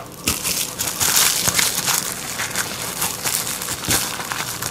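Thin cellophane bag crinkling as it is handled with a 3D-printed sander holder inside, a dense run of small crackles.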